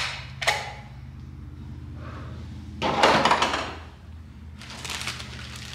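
Hard plastic stove case clicking twice as the MSR PocketRocket stove is pulled out of it, followed by rustling and handling of gear in a fabric pack.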